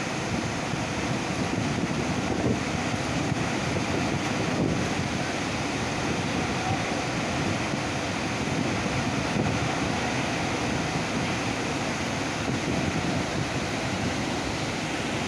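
Floodwater pouring through a dam's open spillway crest gates, about ten gates open at once: a steady, heavy rush of falling water and spray.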